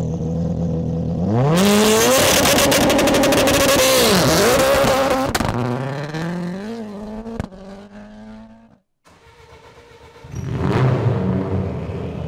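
M-Sport Ford Puma Rally1 hybrid rally car's turbocharged 1.6-litre EcoBoost engine idling, then revving hard as the car launches, held at high revs with rapid crackling and a brief dip, before fading into the distance. After a short break, engine noise rises again near the end.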